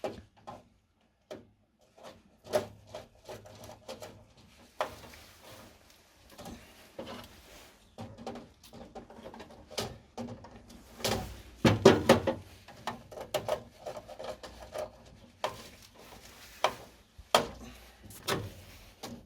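Hands and tools working on a new contactor in a siren's switch box while it is wired in: scattered sharp clicks, knocks and rattles, with a busier run of louder knocks a little past halfway.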